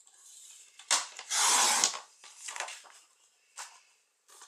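Sliding-blade paper trimmer cutting cardstock. A click about a second in, then the blade is drawn down its track and slices the sheet in one quick swipe of just over half a second. Afterwards the paper scrapes and rustles softly as it is shifted on the trimmer base.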